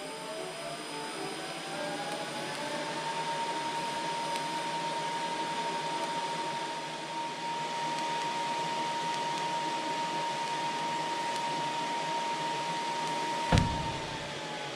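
TIG welding of stainless steel exhaust tubing: a steady hiss with a whine that rises over the first few seconds and then holds level. The whine drops near the end as the arc is shut off, with a single sharp thump just before.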